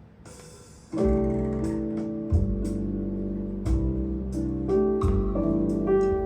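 A vinyl record playing through a hi-fi system: faint hiss, then a bossa nova intro starts about a second in, with keyboard chords, a bass line and light percussion.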